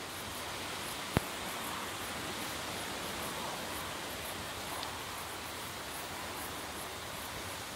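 Faint rustling of a hedgehog moving through dry grass and leaves under a steady outdoor hiss, with one sharp click about a second in.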